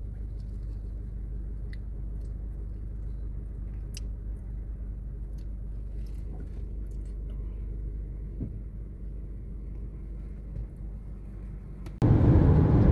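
Low, steady rumble of a car heard from inside the cabin, with a few faint clicks. Near the end it cuts abruptly to much louder driving noise.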